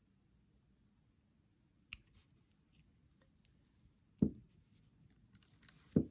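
One-step looper pliers squeezed shut on 22-gauge wire, cutting it and forming a loop: a small click, then two sharp metal snaps with a dull knock, about four and six seconds in.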